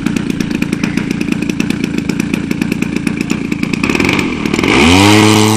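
The 50cc two-stroke petrol engine of a large radio-controlled Extra 300 aerobatic model idling on the ground, a steady rapid putter. Near the end it swells and gives way to music that rises in pitch and settles into held chords.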